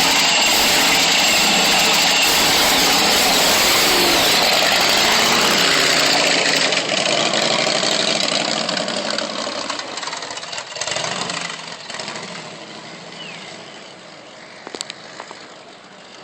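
Small motor scooter engine running loud and rough, then fading away over several seconds as the scooter rides off.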